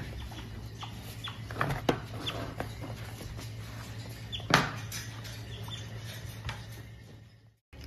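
A pet otter's claws tapping and scrabbling on a wooden tabletop and cardboard boxes, with a few short high squeaks and a louder knock about halfway through; it fades out near the end.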